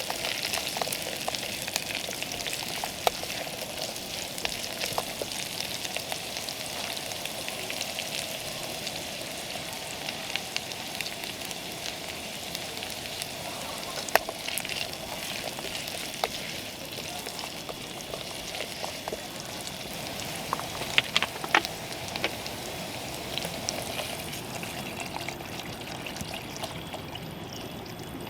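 Food frying and sizzling, a steady hiss broken by a few sharp clicks. The highest part of the sizzle dies down near the end.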